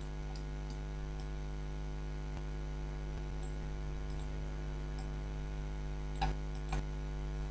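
Steady electrical mains hum with a stack of even overtones, picked up by the recording setup. A couple of faint clicks come near the end.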